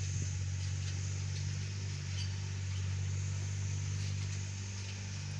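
Steady low background hum with a faint high hiss, unchanging throughout, with a few faint small clicks.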